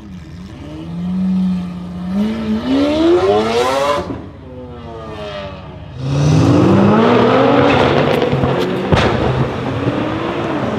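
Lamborghini Aventador's V12 pulling away, its pitch rising twice. About six seconds in, a much louder engine takes over, rising and falling in pitch: a modified Nissan GT-R R35's twin-turbo V6 accelerating.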